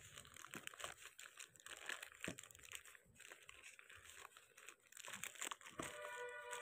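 Clear plastic wrapping crinkling and crackling in irregular bursts as hands handle and pull open a parcel. Faint music comes in near the end.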